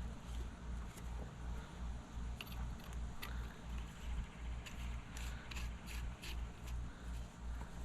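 Brass garden hose quick-connect fitting being handled and snapped together, a run of sharp metallic clicks, bunched together past the middle, over a steady low pulsing throb.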